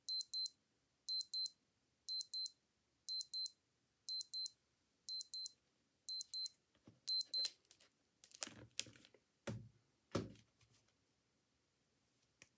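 Digital wristwatch alarm beeping in groups of four quick high beeps, one group a second, eight times over before it stops. A few clicks and knocks follow, two of them dull low thuds.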